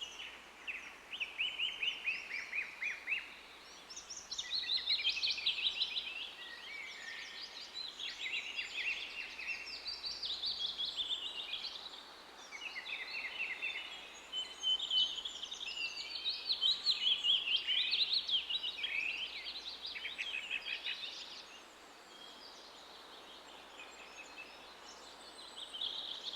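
Birds chattering in bouts of rapid, high notes, each bout a second or two long, repeated with short gaps, over faint woodland background noise.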